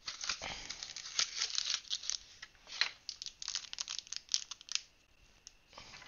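Packaging wrapped around a webcam being crinkled and torn by hand: a dense run of crackles and rustles that thins out after about five seconds.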